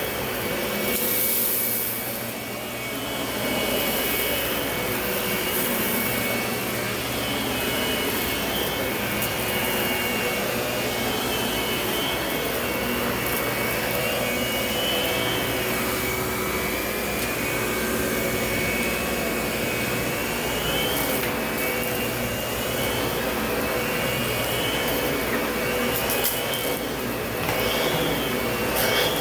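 Lindhaus vacuum cleaner running steadily, a constant motor hum with a high whine that wavers slightly up and down in pitch as it works.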